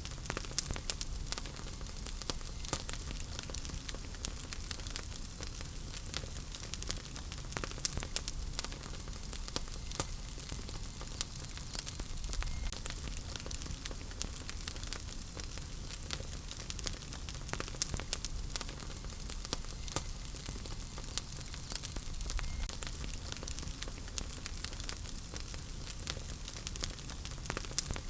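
Wood fire crackling in a fireplace: a constant hiss with frequent sharp pops and snaps scattered at irregular intervals.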